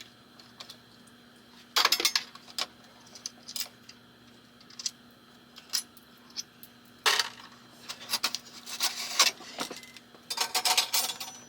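Small metal parts clinking and rattling in scattered bursts of clicks as hardware is removed from a pinball playfield and handled, with a few denser rattles near the middle and the end.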